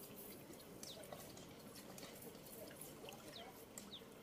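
Faint trickling and dripping of shallow stream water, with a few faint short high chirps.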